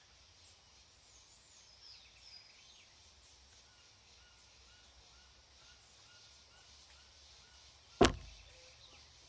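Faint bird chirping in the background, then a single sharp knock about eight seconds in, with a short ringing tail.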